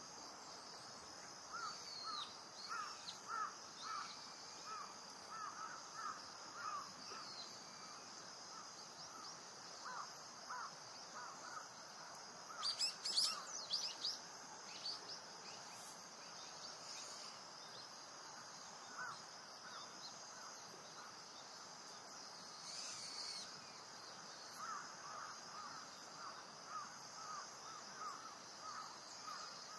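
Faint wild bird calls: runs of short, repeated calls, two or three a second, come and go throughout, with a brief burst of higher chirping about halfway through. Under them is a steady high-pitched drone.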